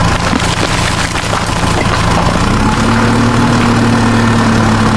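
Steady tractor engine idling sound, a low hum that steps up slightly in pitch about two and a half seconds in, as a miniature tractor trolley tips out its load of sand.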